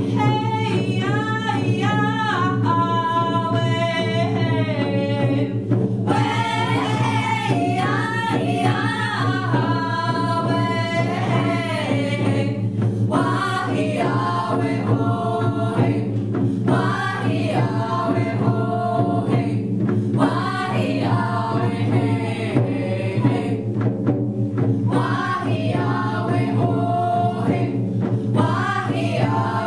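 Indigenous women's vocal ensemble singing together in harmony, several voices holding and bending long notes in phrases with short breaks between them.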